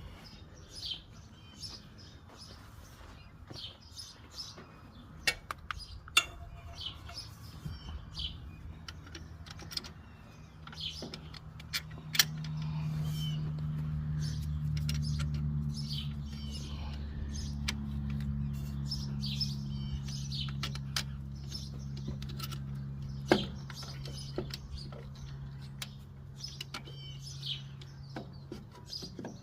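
Small birds chirping over and over, with scattered sharp clicks and knocks. About twelve seconds in, a steady low engine-like hum comes in and runs for some fifteen seconds before fading.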